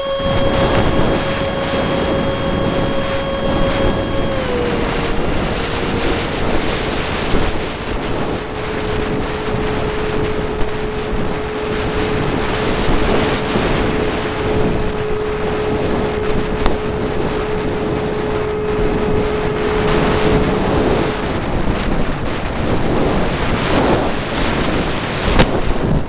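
Strong wind buffeting the microphone, with the thin steady whine of the model A-10's electric ducted fans underneath. The whine drops slightly in pitch about four seconds in as the throttle eases, then fades out a few seconds before the end while the wind noise goes on.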